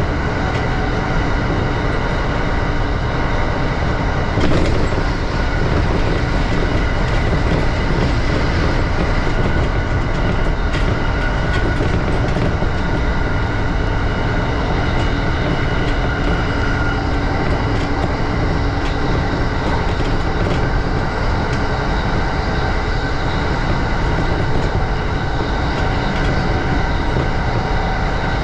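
JR East E235-series electric train running on the rails: a steady rumble of wheels with several steady tones over it and scattered sharp clicks from the track, one louder knock about four and a half seconds in.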